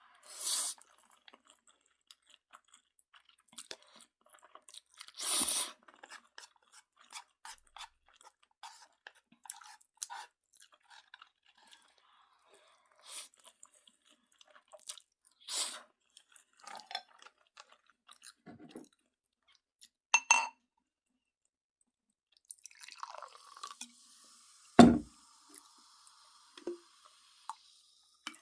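Someone chewing and eating Jjapaghetti noodles with Buldak sauce close to the microphone: scattered small wet mouth clicks, several louder half-second noisy bursts, and one sharp knock about three and a half seconds before the end.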